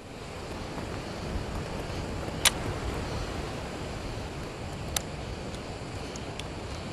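Steady outdoor wind rumble on the microphone, broken by two sharp clicks about two and a half seconds apart, the first the louder.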